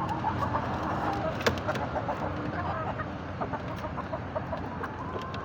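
Chickens clucking, many short calls overlapping, with a sharp click about a second and a half in.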